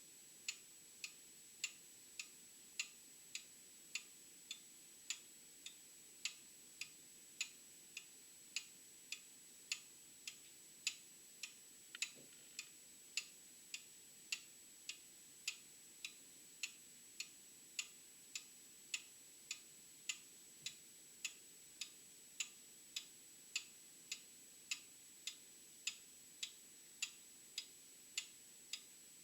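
Old mechanical clock ticking steadily, a little under two ticks a second.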